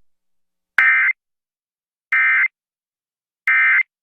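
Emergency Alert System SAME end-of-message data signal: three short, identical bursts of raspy digital tone, about 1.3 s apart, marking the end of the alert message.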